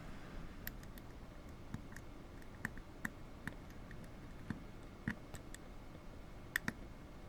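Faint, scattered clicks of a lock pick and tension wrench working the pin tumblers of a 5-pin brass padlock during single-pin picking, with a pair of clicks close together near the end.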